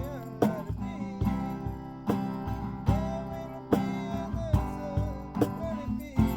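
Acoustic guitar strummed in a steady rhythm, a strum roughly every 0.8 seconds, with a gliding, wavering melody line running over it.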